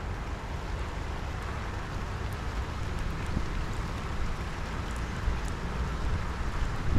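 Steady wash of rain over floodwater on a street, with wind buffeting the microphone as a low rumble and a few faint drop ticks.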